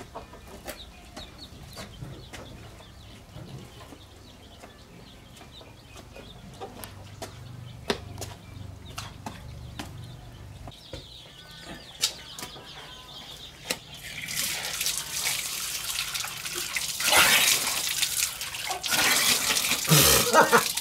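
Water gushing from an open pipe tap onto concrete starts about two-thirds of the way in, with louder splashes as hands are washed under the stream. Before that there are only faint scattered clicks.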